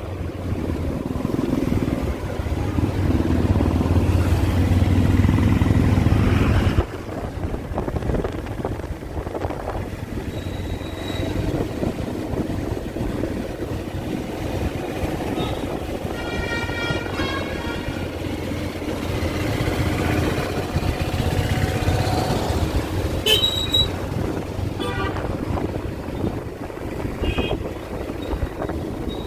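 Town street traffic: vehicle engines with a few horn toots, one pitched horn sounding for a couple of seconds about halfway through. A loud low engine rumble is the loudest part and stops abruptly about seven seconds in.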